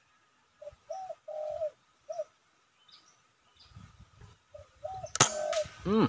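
Spotted doves cooing in short repeated notes, then about five seconds in a single sharp shot from a scoped rifle, the loudest sound.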